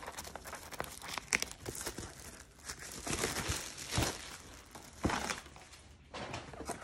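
Clear plastic shrink-wrap being torn off a cardboard box and crumpled in the hand: an irregular crinkling with a few sharper crackles.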